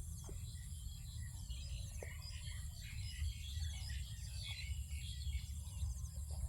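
Outdoor field ambience: small birds chirping on and off over a steady high insect drone, with a constant low rumble underneath.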